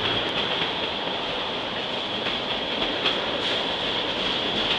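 Freight train of tank cars rolling past: a steady rumble of steel wheels on rail, with a steady high ring through it and a few clicks of wheels over rail joints.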